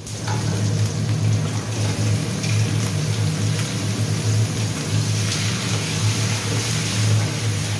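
Aromatics and chicken livers sizzling in oil in a wok while a wooden spatula stirs them, over a steady low hum. The sizzle grows brighter about five seconds in, just after the raw livers go in.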